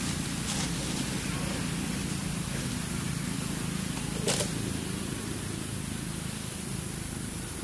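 Steady outdoor background noise, a hiss over a low hum, with one sharp click about four seconds in and a fainter one near the start.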